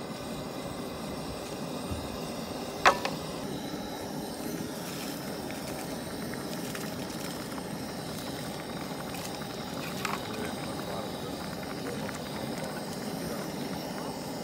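Gas camp stove burner running steadily under a small pot of boiling water with noodles. There is a sharp tap about three seconds in and a fainter one near ten seconds.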